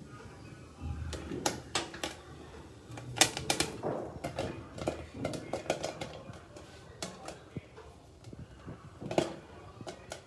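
Popcorn kernels popping, irregular sharp pops at uneven intervals.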